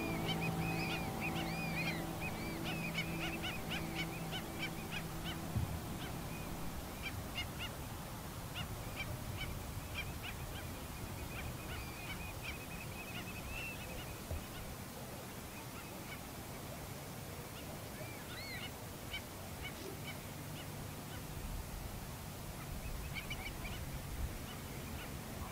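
A flock of waterbirds calling, many short arched, chirping calls overlapping, busiest in the first few seconds and picking up again near the end. Sustained notes of soft music fade out over the first few seconds.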